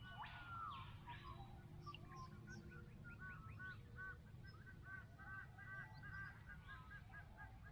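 Wild birds calling faintly: a couple of sweeping calls near the start, then a rapid run of short repeated notes, about five a second, over a low steady rumble.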